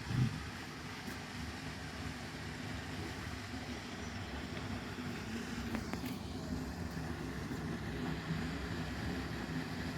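Steady low outdoor rumble at an even level, of the kind distant road traffic makes, with a faint click about six seconds in.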